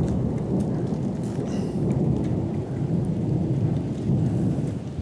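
Thunderstorm: heavy rain and wind make a steady low rumble.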